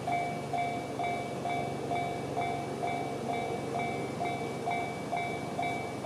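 Electronic level-crossing warning bell with the JR standard tone, striking a ringing electronic ding about twice a second to warn that a train is approaching. It stops near the end.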